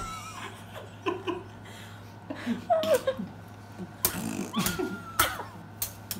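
People laughing, with short bits of voice and a few sharp taps or knocks scattered through, over a steady low hum.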